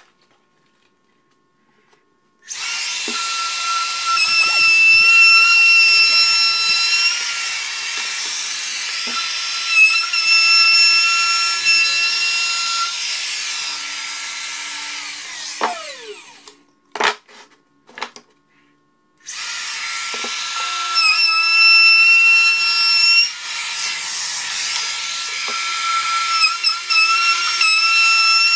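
DeWalt compact router running with a steady high whine as it cuts along the edges of a wooden end-table frame. It starts about two and a half seconds in and spins down with a falling whine about halfway through. Two sharp knocks come in the short pause before it starts again and runs on.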